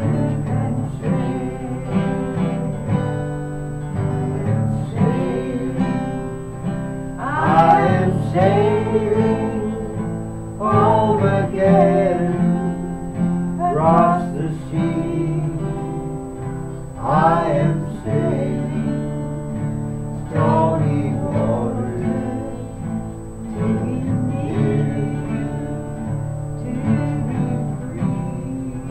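Acoustic guitar strummed as accompaniment, with a voice singing a melody over it in phrases every few seconds.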